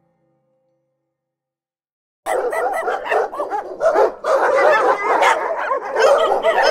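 Silence for about two seconds, then dogs barking loudly with many overlapping barks, starting abruptly.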